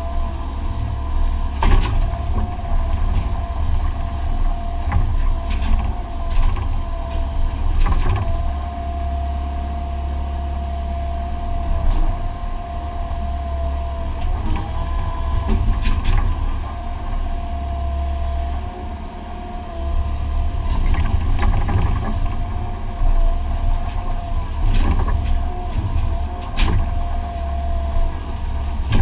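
Excavator's diesel engine and hydraulics running under load, heard from inside the cab: a deep steady rumble with a steady whine over it. Scattered sharp knocks and clanks come through as the bucket digs into the rubble of the old foundation.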